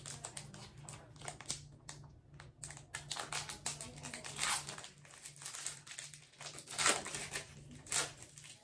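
Trading-card pack wrapper crinkling and tearing as it is opened by hand and teeth, in irregular rustling bursts, the loudest about seven and eight seconds in.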